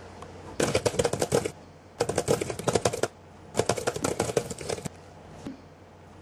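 Typing on a computer keyboard: three quick runs of key clicks, each about a second long, then a single key tap.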